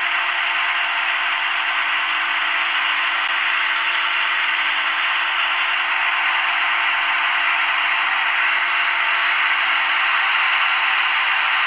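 Simulated CNC lathe sound from a simulator app: a steady, even whirring hiss with a faint hum under it as the simulated tool makes a roughing cut on the turning bar.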